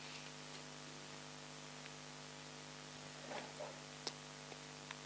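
Steady low electrical hum from the microphone and sound system, with a few faint clicks and a soft rustle about three and a half seconds in from Bible pages being handled.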